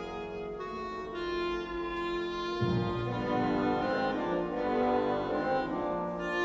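Orchestral background music, with a fuller, lower chord coming in about two and a half seconds in.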